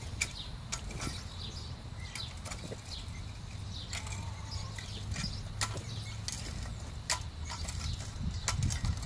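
Hand-pushed wheel hoe with star-tine wheels being walked through dry, stony soil between crop rows, giving irregular clicks and rattles as the tines and blade bite the ground and strike stones, over a steady low rumble.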